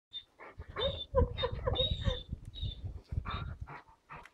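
German Shepherd giving a quick run of short, high whines about a second in, over the rumble of the phone being handled.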